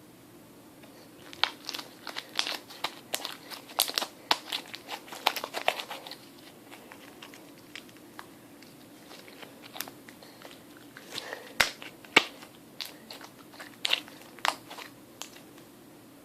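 Homemade glue-and-detergent slime being squeezed and worked in the hands, giving off irregular wet clicks and pops in two spells with a quiet stretch between.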